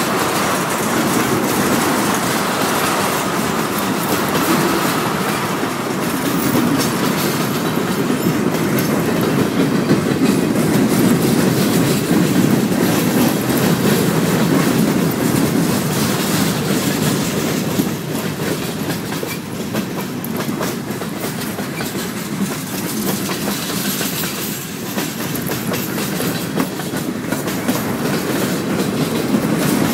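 A mixed freight train's cars, tank cars, boxcars and covered hoppers, rolling steadily past close by: a continuous rumble of steel wheels on rail with rapid clicking over the rail joints. It gets a little quieter for a few seconds past the middle.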